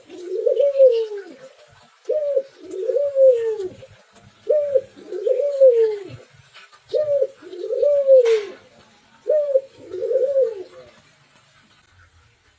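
Spotted dove (tekukur) cooing: five repeated two-part phrases, each a short coo followed by a longer rolling coo, about every two and a half seconds, stopping near the end.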